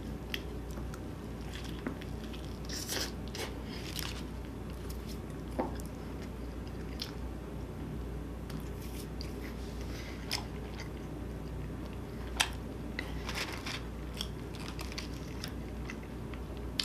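Close-up sounds of a person biting into and chewing a cheeseburger: wet smacks and scattered sharp clicks, over a steady low hum.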